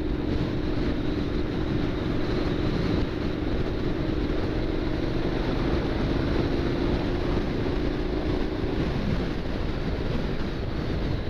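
Honda NC750X parallel-twin engine running at a steady cruise while the bike rides along, under a constant rush of wind and road noise. Its steady engine note fades away about nine seconds in.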